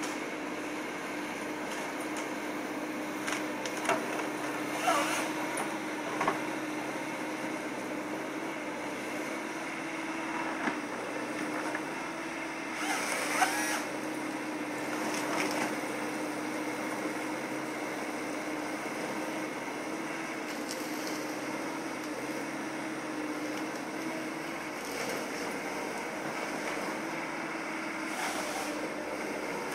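A Hyundai 160 excavator's diesel engine running steadily with a constant hum while its Ponsse harvester head works the trees. Sharp snaps and cracks of wood come about 4 to 6 seconds in and again about 13 to 16 seconds in, the loudest near 13 seconds.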